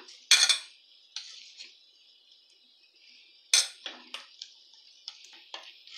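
A steel spoon clinking against a white ceramic bowl as cocoa-sugar powder is spooned into melted butter and stirred. There are two sharp clinks, one just after the start and one about three and a half seconds in, followed by lighter taps, over a faint steady hiss.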